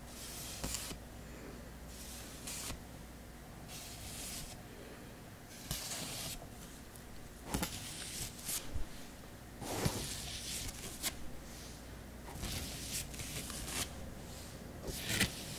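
Hands swishing and rustling close to the microphone in slow ASMR reiki plucking gestures: separate soft hissy strokes at an irregular pace, with a few light clicks.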